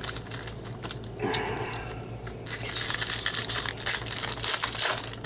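Foil wrapper of a pack of baseball cards crinkling and tearing as it is handled and ripped open; the crackling is densest in the second half.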